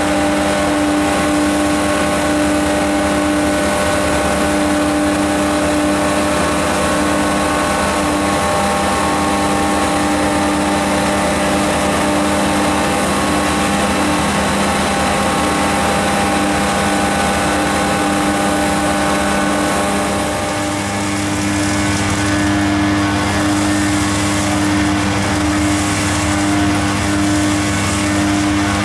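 Vacuum excavation truck's engine and suction blower running, a steady droning whine. A deeper rumble joins about two-thirds of the way through.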